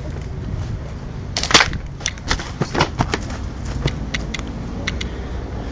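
Pistol shots: two sharp cracks close together about a second and a half in, followed by a scattered run of lighter snaps and clicks, over a steady low rumble.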